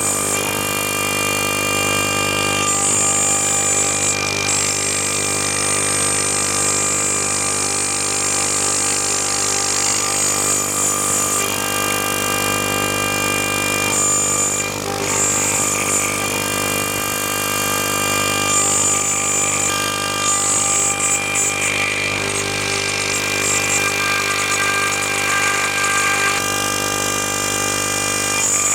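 CNC machine running, its motors giving a steady whine made of several high tones that change pattern every few seconds as the machine moves through its program.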